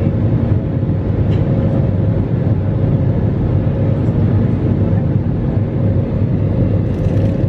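Airbus A320 cabin noise during the climb after takeoff: the jet engines and airflow make a steady low rumble with a faint constant hum over it.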